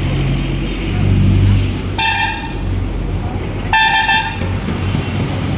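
A vehicle horn sounds two short, high-pitched honks about a second and a half apart, over a low steady rumble.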